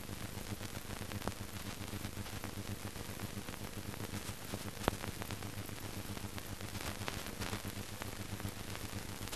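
Steady hiss and low mains-type hum of an old film soundtrack, with a few faint crackles and one sharp click about five seconds in.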